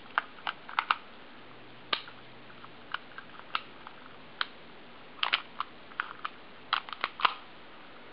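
A string of sharp metallic clicks from a Taurus PT92 pistol's action being worked by hand. They come at irregular times, some single and some in quick pairs and clusters.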